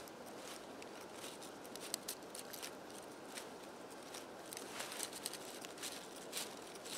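Scissors snipping through a sheet of leather in short, irregular cuts, thicker in the second half.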